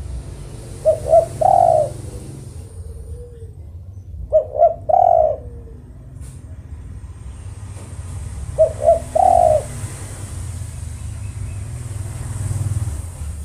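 Spotted dove (tekukur) cooing: three calls about four seconds apart, each two short notes followed by one longer note, over a steady low background hum.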